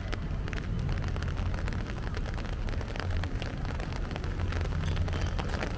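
Rain pattering, many irregular drops ticking, over a low steady rumble.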